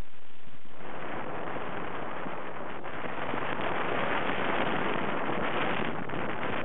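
Steady rush of wind noise on the microphone, starting about a second in.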